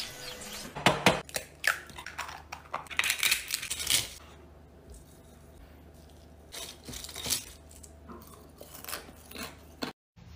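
Crisp crunching and crackling as someone bites into crispy grilled fish, a dense run of sharp crunches for about three seconds, then much quieter scattered light clicks and rustles.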